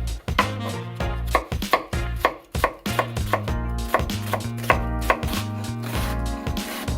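Kitchen knife chopping on a cutting board in a steady run of cuts, about two or three a second, over background music.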